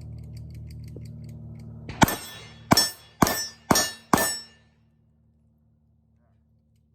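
Five gunshots fired in quick succession, about half a second apart, each with a short ringing tail.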